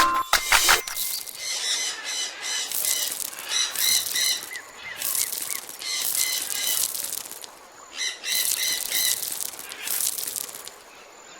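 Birds chirping in repeated groups of short, high notes, with a hiss that comes and goes.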